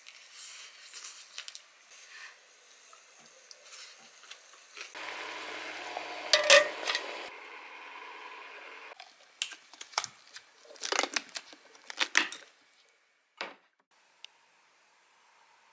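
Tableware and cookware clinking: light clicks of chopsticks and dishes, then a stainless-steel lid handled and set onto a metal hot pot, with several sharp metal clinks and a last knock.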